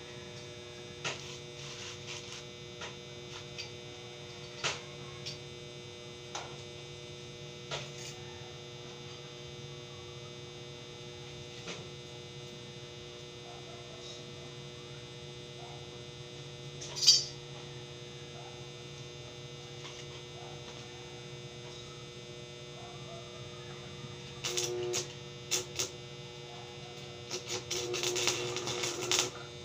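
Steady electrical hum of an arc welding machine switched on, with scattered sharp clicks and taps of metal. Near the end comes a few seconds of irregular crackling as welding starts on the steel bars.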